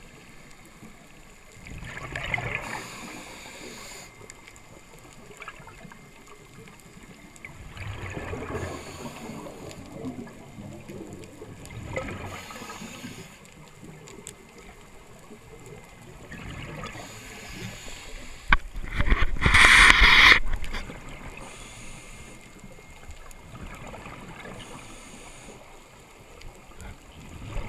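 Scuba regulator breathing underwater: bubbly exhalations a few seconds apart over a low hiss, the loudest and longest about two-thirds of the way through.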